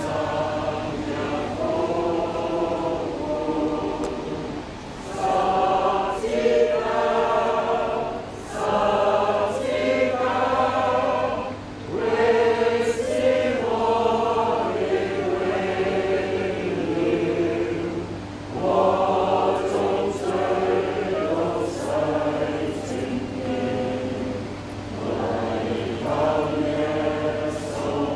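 Group of mourners singing a Christian hymn together in slow, drawn-out phrases, with short breaks between lines.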